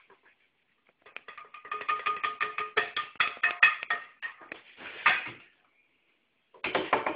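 A metal spoon scraping and clinking on a ceramic plate as chocolate-cherry mousse is spooned onto it: rapid clicks, with the plate ringing at a few steady pitches. A short scrape comes about five seconds in and another near the end.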